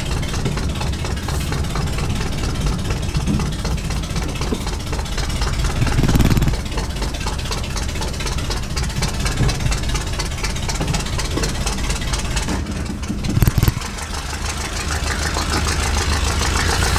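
Ford F-150's V8 breathing through long-tube headers and straight-piped true dual exhaust with no catalytic converters, running at low speed while the truck is backed and pulled forward, heard from inside the cab. A steady low rumble that swells briefly about six seconds in and again about thirteen seconds in.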